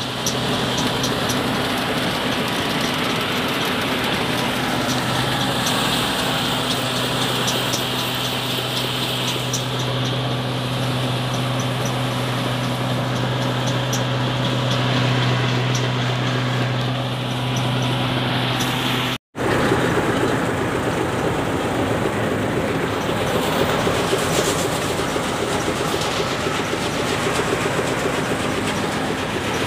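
Groundnut thresher running steadily, a continuous mechanical rattle over a constant low hum, cut off for an instant about two-thirds of the way through.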